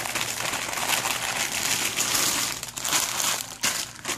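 Packaging crinkling and rustling continuously as hair bundles are handled and pulled out of it.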